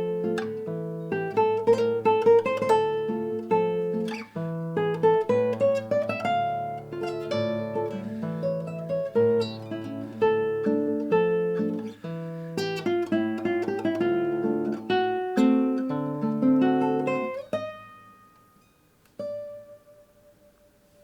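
Acoustic guitar music, plucked and strummed notes in a steady run that fades out near the end, followed by one last note that rings on.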